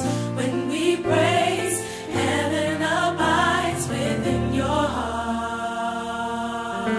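Gospel song: voices singing together over sustained instrumental chords.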